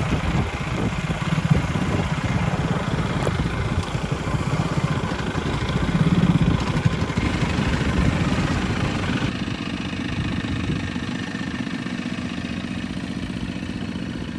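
Vehicle engine running steadily with road noise; the higher-pitched part of the noise drops away about nine seconds in.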